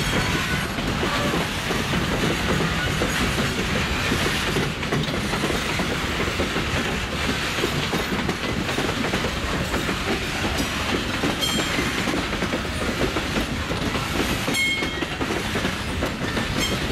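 Freight train's boxcars rolling past close by, steel wheels clattering over the rail joints in a steady stream. A couple of brief high-pitched squeals sound late on.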